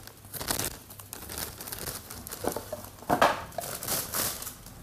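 Clear plastic bag crinkling and rustling in fits and starts as a chronograph is worked out of it, loudest about three seconds in.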